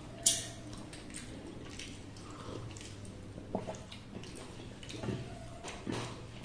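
Close-up wet eating sounds of people eating rice and curry by hand: lip smacks, chewing and a slurp from a small steel bowl. There is one sharp wet smack about a quarter second in, and softer ones later.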